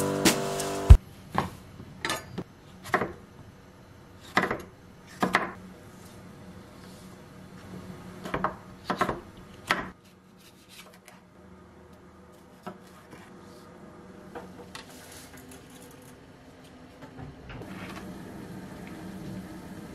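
Piano music ends about a second in, then a chef's knife cuts bell peppers into strips on a wooden cutting board: a dozen or so irregular sharp knocks of the blade on the board. After about ten seconds the chopping stops and only faint handling clicks remain.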